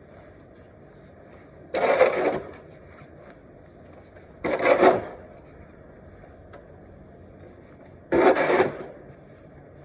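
Snow shovel scraping through snow in three strokes, roughly three seconds apart, each lasting under a second.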